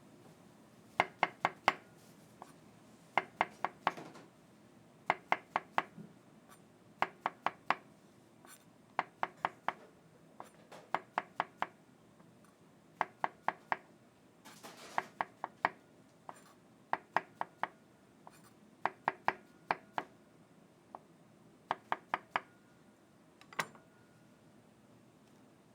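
Knife chopping in quick runs of three to five sharp strokes, one run about every two seconds, with a short rasping noise about halfway through.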